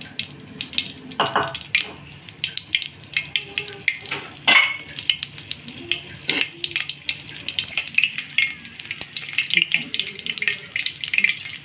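Whole dried red chillies frying in hot oil in a wok, sizzling with dense quick crackles as they are fried until crisp. A few louder strokes stand out, from a metal spatula stirring in the pan.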